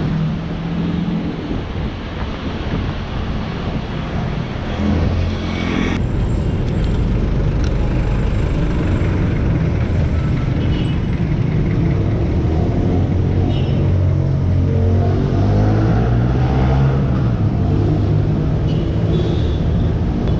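Highway traffic heard from a bicycle: the engines of nearby motor vehicles running steadily, mixed with road noise.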